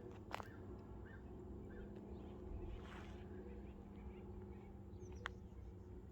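Quiet outdoor ambience with a steady low rumble and a few faint bird chirps, broken by two sharp clicks about half a second and five seconds in.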